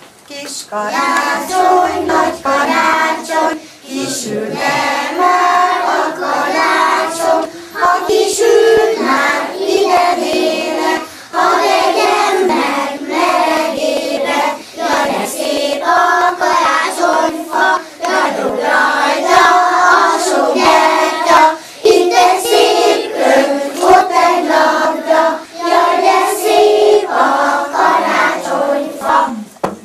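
A group of young children singing a song together in unison, starting just after the beginning and breaking off just before the end.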